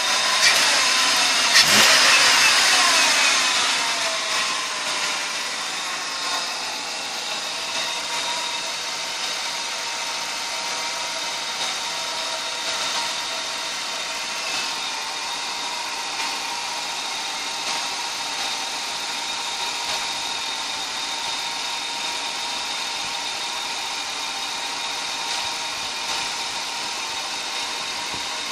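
2000 Buick LeSabre's 3.8-litre V6 engine surges in speed about two seconds in, its pitch falling as it settles back. It then runs at a steady idle with a few steady high tones over it.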